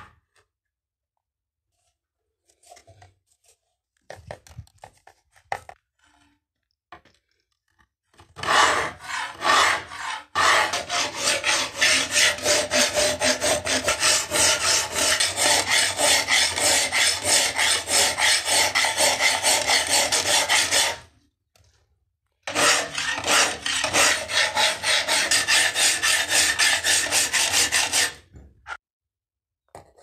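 Hand file cutting the bevel of a steel knife blade held in a filing jig: quick, regular rasping strokes. They start about eight seconds in, pause briefly past two-thirds of the way, then run on again before stopping a couple of seconds before the end.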